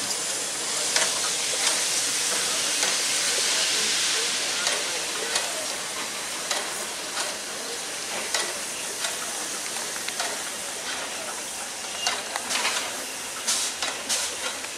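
Steam locomotive hissing out steam, loudest a few seconds in and then easing off, with scattered light clicks.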